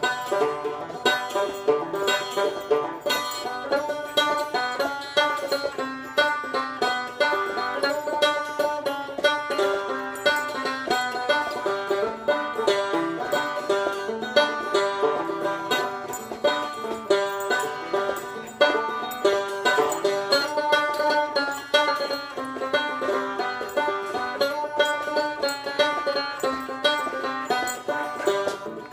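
Fast bluegrass banjo music, a steady stream of quickly picked notes.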